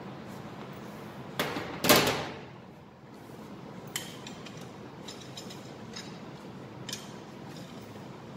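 Metal clanks of a socket wrench and bolts against an engine's rear gear housing. There are two loud clanks about a second and a half and two seconds in, the second ringing briefly, then a few light clicks as the wrench works on the housing bolts.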